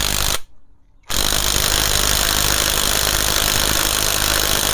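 Cordless impact wrench running down the clutch centre nut on a Bajaj Discover 150 engine: a short burst, a pause of under a second, then a long steady run from about a second in.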